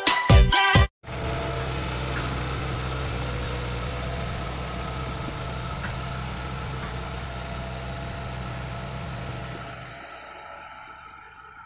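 Hitachi hydraulic excavator's diesel engine running steadily as the machine tracks away, the sound fading near the end.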